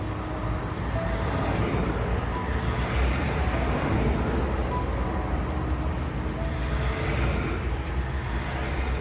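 Highway traffic: a continuous rush of tyres and engines, with passing vehicles swelling and fading every couple of seconds.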